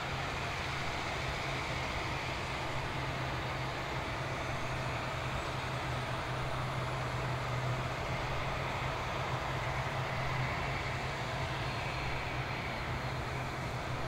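Steady machinery noise from an Airbus A350-900 on the apron, with a constant low hum and a faint rising high whine about a third of the way through.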